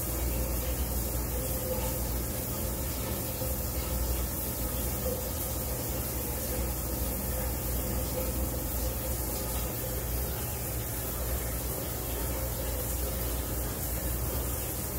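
Steady hiss with a low hum underneath, unchanging throughout, with no distinct knocks, calls or strokes standing out.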